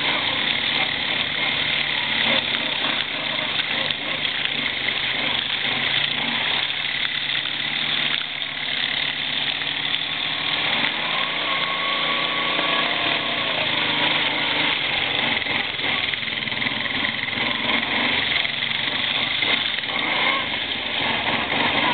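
ATV (quad bike) engines running, heard from a rider's helmet camera, with the engine note revving up and down partway through.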